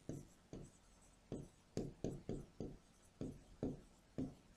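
Marker pen writing on a whiteboard: a faint, uneven run of short strokes, about two a second.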